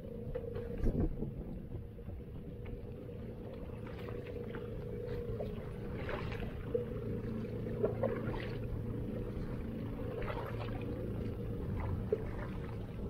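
Fishing kayak on the water: a steady low rumble with short splashy sounds every second or two.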